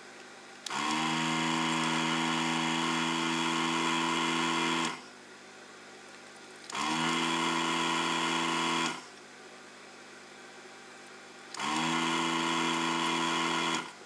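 Electric desoldering gun's built-in vacuum pump running in three bursts, sucking molten solder off a mouse micro switch's pins to free the switch. The first run lasts about four seconds and the next two about two seconds each. Each starts with a short rise in pitch as the pump motor spins up, then holds a steady hum over a hiss of air.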